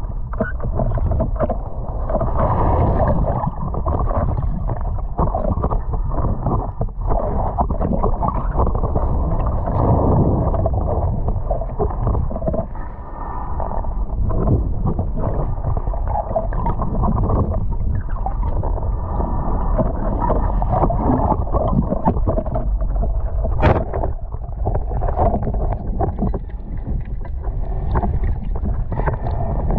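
Muffled underwater water noise heard through an action camera's waterproof housing: continuous, uneven sloshing and rushing as a diver swims just below the surface, with small knocks throughout and one sharp click a little past the middle.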